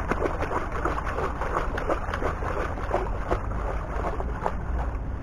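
Shallow water sloshing and splashing around a person's legs as they wade and shift about, many small irregular splashes over a steady low rumble of wind on the microphone.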